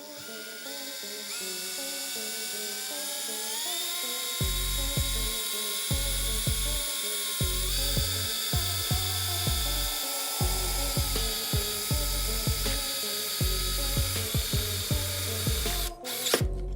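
Electric drill whining as it spins up over the first few seconds, then running steadily with a step up in pitch about seven seconds in, boring a hole in a plastic project box lid; it stops shortly before the end. Background music with a heavy bass beat plays along from about four seconds in.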